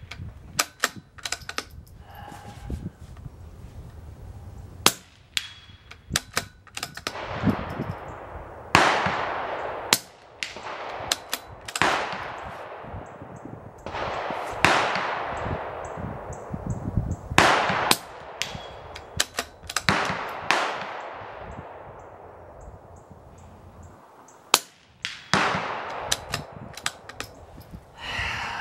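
Rimfire rifle fired in a string of shots at steel plate targets: many sharp cracks, with several louder ones that trail off in a long fading tail.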